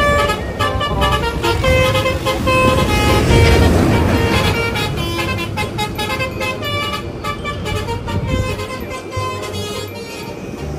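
Telolet bus horn playing a quick tune of short, stepped notes, over vehicle engine noise.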